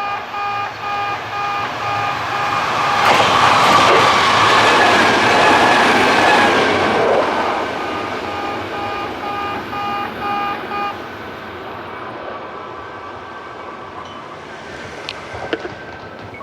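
Level-crossing alarm sounding an electronic "pe-pe-pe" tone in place of the usual clanging bell, pulsing about twice a second. A Kintetsu train runs through about 3 s in, loud for around four seconds before fading. The alarm stops about 11 s in, once the train has cleared the crossing.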